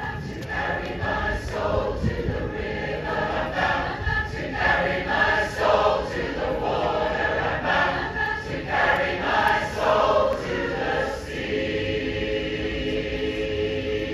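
Large a cappella mass choir singing a traditional spiritual in short phrases, then holding a long final chord from about eleven seconds in.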